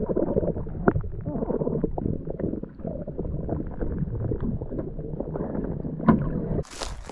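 Muffled underwater water noise picked up by an action camera in its waterproof case, submerged beside a pike held in the water: a dull, steady rumble with a few knocks. About six and a half seconds in it cuts out and gives way to a short hiss of open air.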